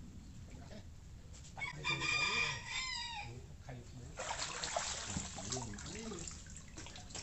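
A rooster crows once, about two seconds in: one long call that drops in pitch at the end. From about four seconds in, a steady rush of noise follows.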